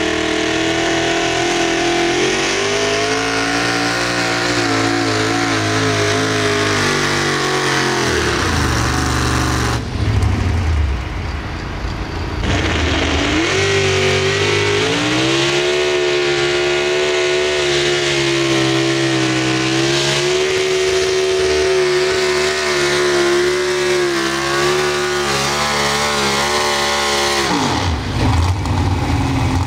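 Modified pulling tractors' open-piped racing engines at full throttle pulling a sled. The first engine climbs in pitch and falls away about eight seconds in; after a brief cut a second engine climbs fast and holds a steady high note under load, then drops off near the end.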